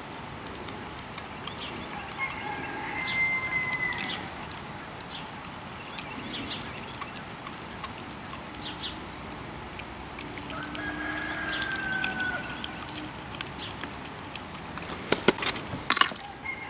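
Birds chirping throughout, with a few drawn-out, level animal calls. About fifteen seconds in come several sharp, loud knocks as a Siberian husky grabs a raw cow marrow bone off the wooden deck boards.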